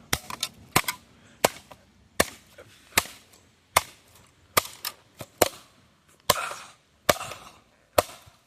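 A hammer repeatedly striking a Sangean digital clock radio: about a dozen sharp blows, a little under one a second, with smaller knocks between some of them and a brief rattle after two of the later blows.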